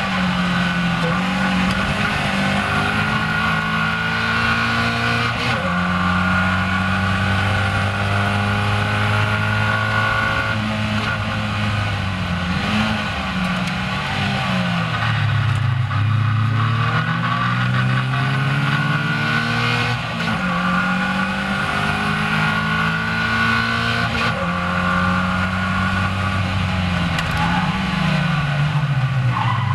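Caterham Seven race car's engine heard from its open cockpit, running hard through a lap, its pitch repeatedly falling on braking and climbing again under acceleration. About halfway through, it drops low for a slow corner and then rises again.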